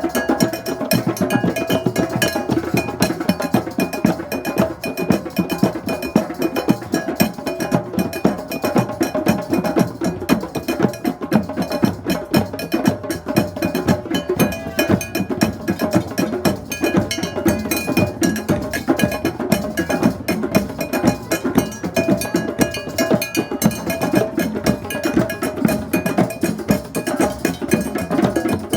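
A drum circle: many drums and percussion instruments played together in a dense, continuous rhythm, with a cowbell ringing through it.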